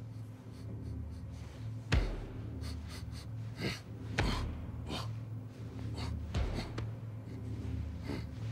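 Heavy footfalls of a prowling gorilla in a cartoon soundtrack: a few scattered thuds, the loudest about two seconds in, over a steady low machine hum of a ship interior.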